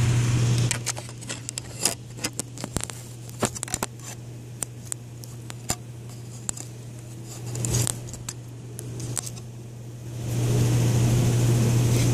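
Handling noise of a phone camera being positioned and set down: scattered clicks and knocks, with a longer stretch of rubbing near the end, over a steady low hum.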